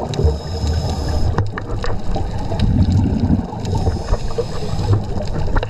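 Underwater sound of scuba divers breathing through regulators: exhaled bubbles rumble and gurgle in a steady low wash, with a stronger burst about three seconds in and scattered small clicks.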